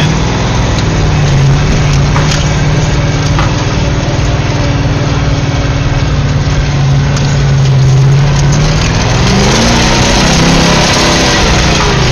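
Off-road truck engine revving hard and held at high revs while driving through mud, heard from inside the cab, with scattered knocks and clatter. About nine seconds in the revs drop and climb again.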